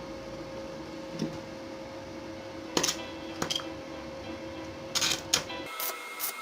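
A steady hum with several sharp metallic clinks, a few of them close together; the hum drops away suddenly near the end.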